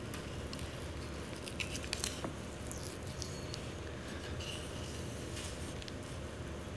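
Faint, soft wet cutting and handling sounds of a knife trimming a raw red snapper fillet, with a few light clicks over steady room noise.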